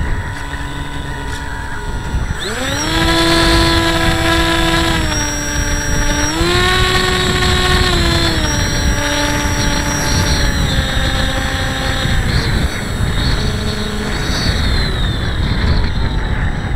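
Electric motor and propeller of a Hobbyking Breeze FPV model plane, heard from its onboard camera. The whine climbs sharply as the throttle opens about two seconds in, steps down and back up, drops about eight seconds in, and fades away after twelve seconds. Wind rushes over the microphone throughout.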